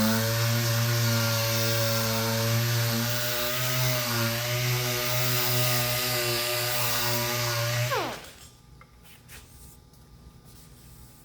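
Electric power sander running steadily as it sands filler, then switched off about eight seconds in, its pitch falling quickly as it spins down. A few light knocks follow.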